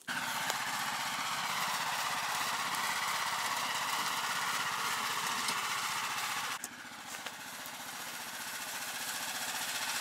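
Engine of a Rybak motorized towing sled (motodog) running steadily with a fast even pulse. About two-thirds of the way through the sound drops suddenly, then gradually grows louder.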